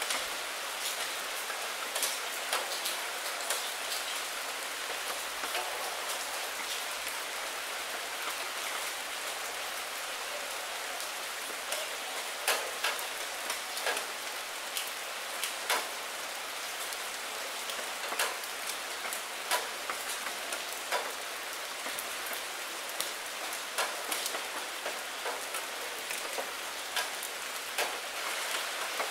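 Steady rain on a window pane: an even hiss with frequent, irregular sharp taps of single drops striking the glass.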